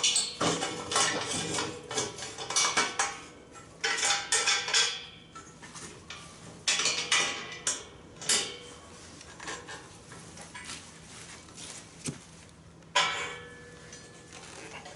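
Steel hardware and a wrench clinking and clanking in several bursts as adjustable feet are fitted onto a welded steel stand, with a last ringing clank near the end.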